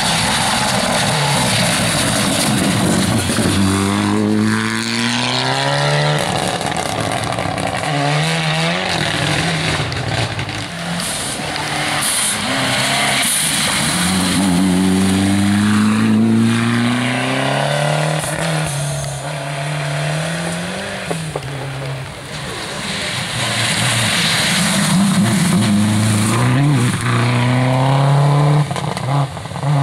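Rally cars at full throttle on a wet gravel stage: the engine revs climb and break off again and again at gear changes, with the hiss of tyres throwing wet gravel and water. The first car is a white Ford Escort. A second car accelerates past near the end.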